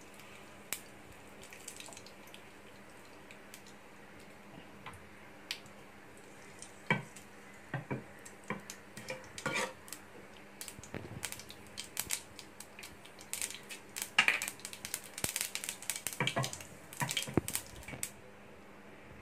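Steel spoon stirring and clinking against a nonstick frying pan of hot oil with curry leaves and mustard seeds: a run of sharp clicks and scrapes, few at first and thickest in the second half, over a faint steady sizzle.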